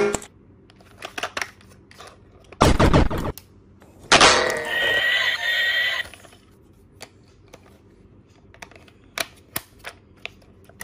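Plastic clicks and knocks from handling a battery-powered toy train and its battery compartment, with a louder knock about three seconds in. About four seconds in the toy gives a short electronic sound lasting roughly two seconds.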